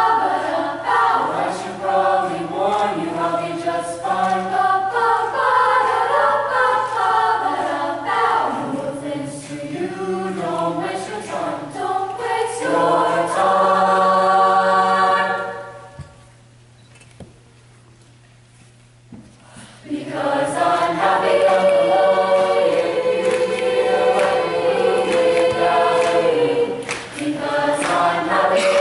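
A junior high school choir singing together, holding a chord about halfway through, breaking off for a few seconds, then starting again.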